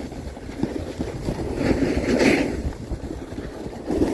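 Wind buffeting the microphone over a low, rough rumble of moving fast across packed snow, a little louder about two seconds in.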